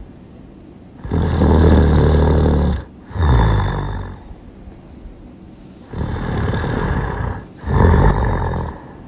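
Loud human snoring: two breaths, each a long, low, buzzing snore followed by a second, shorter snore, with quiet gaps between them.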